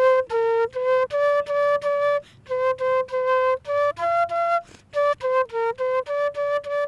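Flute-like woodwind playing a melody of short, detached notes, with two brief pauses in the phrase.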